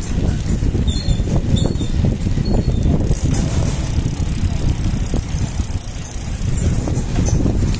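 A bicycle rolling along a concrete road, heard from a mic mounted low beside the front wheel: steady tyre rumble and wind buffeting the microphone, with a few short high chirps between about one and two and a half seconds in.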